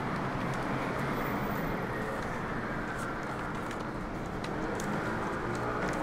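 Street traffic noise: a steady wash of passing vehicles with a few faint ticks.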